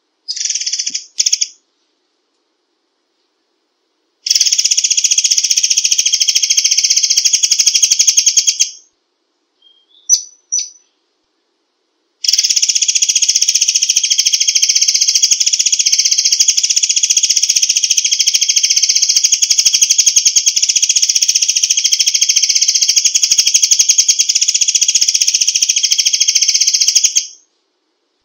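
Murai air bird calling: a few short, high chirps, then long, very rapid, dense trills. The first trill lasts about four seconds and the second about fifteen, with short silent breaks between them.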